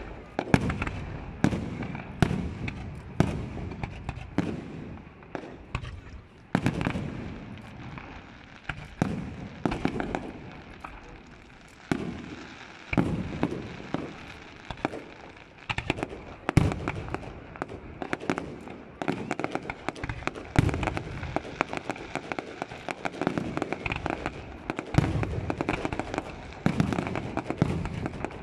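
Fireworks display: aerial shells and rising comets going off in quick succession, a dense, uneven run of bangs.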